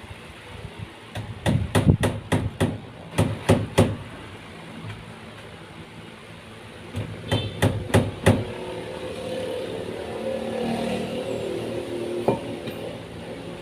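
Hammer driving a nail: a run of about ten quick blows, a pause of a few seconds, then about six more blows.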